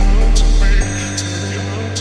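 Background music with a regular beat, a sharp tick about every 0.8 s; a deep low note drops out and the music gets quieter about a second in.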